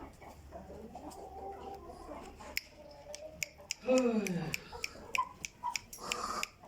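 Gamefowl chickens clucking, with one loud call falling in pitch about four seconds in, among a scatter of sharp clicks.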